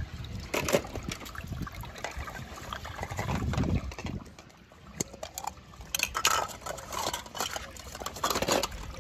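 Water splashing and dripping as wet clear plastic capsules are handled, with scattered light clicks and clatter of hard plastic, busiest near the end.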